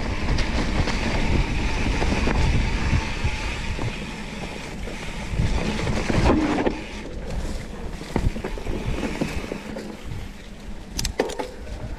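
Mountain bike riding a dirt trail: wind rush and rumble of the tyres over the ground, with sharp clacks and rattles from the bike over rough spots. It eases off a little past halfway.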